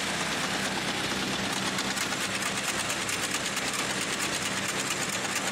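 Engine of a homemade, scrap-built helicopter running steadily with a fast, even rattle.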